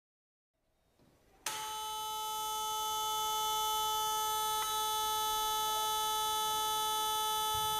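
Loudspeaker driven by a signal generator sounding a single steady, buzzy tone into a Kundt's tube, setting up standing waves in the air column that pattern the cork dust. The tone switches on suddenly about a second and a half in and holds at one pitch.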